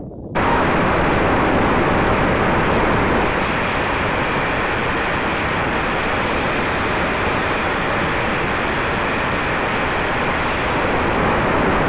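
Steady rushing of airflow and propeller noise on the onboard camera of a small electric box-wing FPV airplane in flight, with a faint steady motor hum. It starts abruptly a fraction of a second in.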